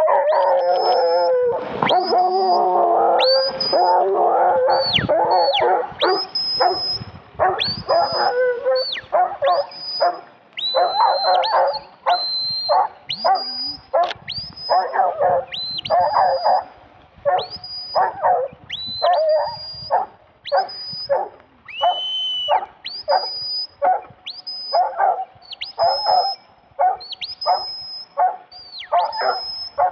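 Huntaway sheepdog barking on the hunt, the steady, repeated bark it uses to drive sheep up a hillside. It opens with a brief burst of excited yelping, then settles into single barks about every half second.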